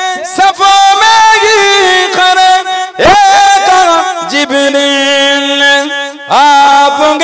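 Devotional naat music, a passage without words: melodic lines that swoop up into notes, with one long held note in the middle.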